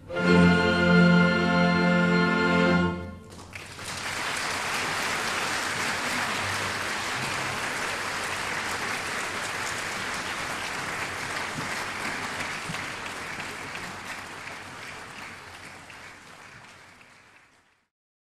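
A symphony orchestra holds its final chord for about three seconds and cuts off. An audience then applauds, fading away near the end.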